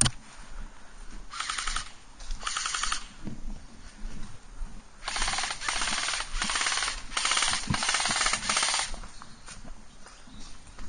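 Airsoft gun firing on full auto: two short rapid rattling bursts early on, then a longer string of bursts from about five to nine seconds in.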